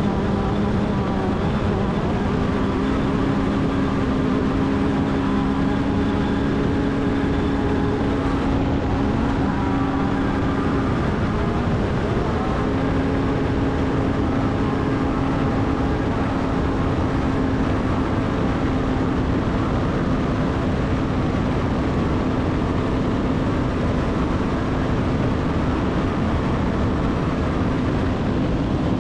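Off-road race vehicle's engine running at sustained high revs, heard from on board over a steady rush of wind and driving noise. Its pitch shifts around eight seconds in and again around twelve seconds in.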